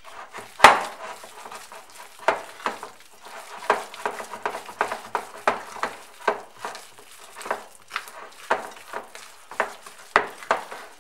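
Wooden spoon mixing a thick ground pork-crackling spread in a bowl, with repeated scrapes and knocks against the bowl about twice a second. The sharpest knock comes about half a second in and another near the end. The spread is being worked thoroughly to a creamy consistency.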